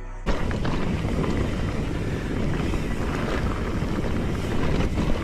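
Boat under way at speed, with wind buffeting the microphone and water rushing. It starts abruptly about a quarter second in.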